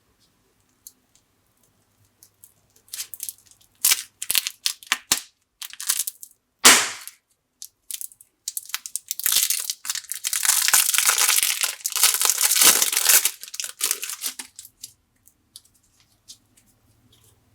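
Plastic packaging being handled and torn open, crinkling: a string of crackles, a single sharp crack about seven seconds in, then several seconds of continuous rustling and crinkling.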